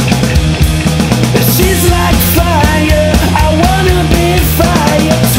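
Indie funk-rock band recording, a passage without lyrics: drums and bass keep a steady groove, and a lead melody of bending, wavering notes comes in about one and a half seconds in.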